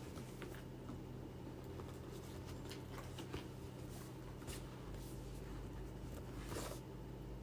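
Faint rustling and scattered light clicks of a gift box and its packaging being handled and opened.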